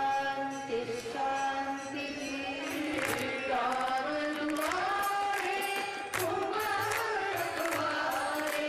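Hindu devotional hymn sung during the aarti worship of the Ganga, with voices singing a gliding melody over steady harmonium notes. Sharp metallic strikes come every second or so.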